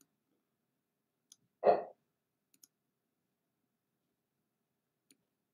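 A few faint, sharp computer-mouse clicks in an otherwise quiet room, with one brief, louder sound about a second and a half in.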